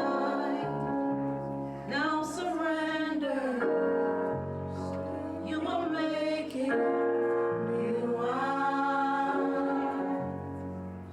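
Gospel worship music: voices singing long, held notes over sustained keyboard chords and bass notes that shift every couple of seconds.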